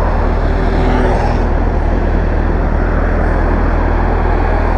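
Steady highway traffic noise with a deep, constant rumble; no single event stands out.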